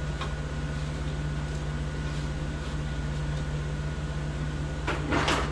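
Steady mechanical hum with a faint high whine. Near the end come two short scraping noises.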